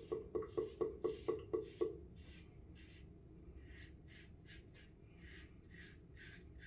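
Timeless bronze safety razor scraping through lathered stubble against the grain in short, quick strokes, about four or five a second for the first two seconds, then fainter, sparser strokes.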